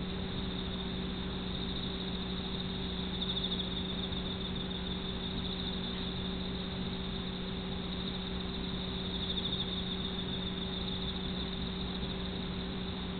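Steady low electrical hum with an even hiss, swelling faintly twice.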